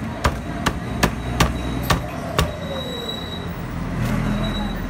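A cleaver chopping roast duck on a round chopping block: about six sharp chops, one every half second or so, in the first half, then a pause.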